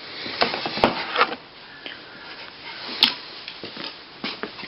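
Scattered clicks and light knocks of mower parts being handled and fitted together, the sharpest click about three seconds in.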